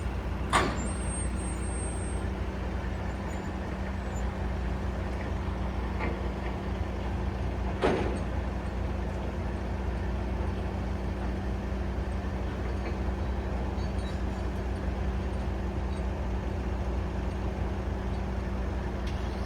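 Heavy vehicle engine idling steadily close by, with two sharp knocks, one about half a second in and one about eight seconds in.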